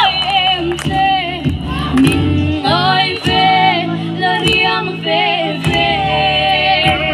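A group of voices singing a folk song, with sharp claps about twice a second keeping the beat.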